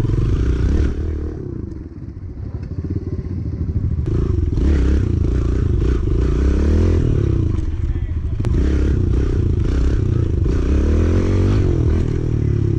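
Small pit bike engine revving up and down as it is ridden in wheelies, the throttle worked to hold the balance point. It eases off about a second in and pulls hard again from about four seconds.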